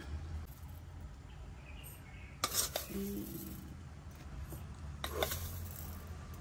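Small metal spoon scraping in a tin of powder and clinking against the tin rim and glass mugs while powder is spooned out, with a light clink about two and a half seconds in and another about five seconds in, over a low steady hum.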